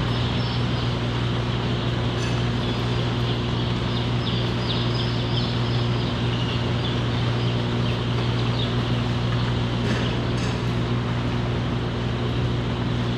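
A large flock of young pullet chicks peeping, faint against the steady hum of machinery in the rearing house.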